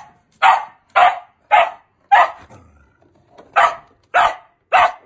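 Australian cattle dog barking in short, sharp barks about every half second: four barks, a pause of about a second, then three more.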